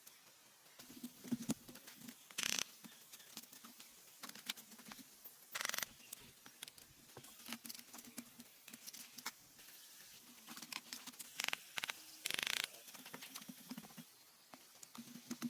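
Handwork on small pieces of wood: scattered light clicks and taps, with four short rasping strokes standing out as the loudest sounds.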